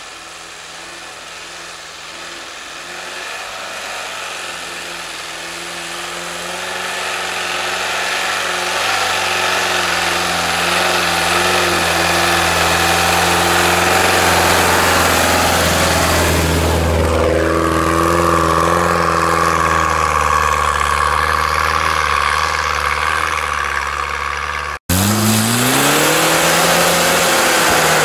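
UAZ-469 off-roader's engine pulling steadily through deep snow, growing louder as it comes closer, with its pitch shifting about two-thirds of the way through. After a cut near the end, another off-road 4x4's engine revs up and back down as it ploughs through snow.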